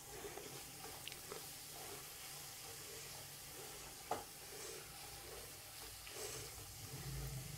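Chopped fenugreek leaves and peas in masala sizzling faintly in a nonstick kadai while a spatula stirs them, with a few light knocks of the spatula on the pan, the loudest about four seconds in.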